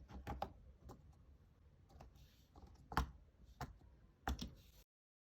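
Cardboard jigsaw puzzle pieces being handled and pressed into place on a table: a loose series of small clicks and taps, the loudest about three seconds in. The sound cuts off abruptly near the end.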